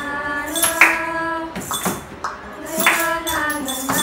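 Young voices singing a melody in unison, with shaker-like hits from homemade percussion landing roughly once a second.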